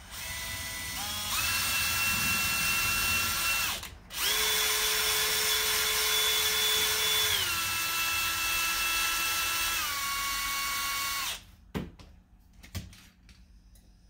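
Cordless drill spinning a cotton swab to clean out a small-engine carburetor: a steady motor whine that stops briefly about four seconds in, runs again, steps down in pitch twice, and cuts off near the end. Two light clicks follow.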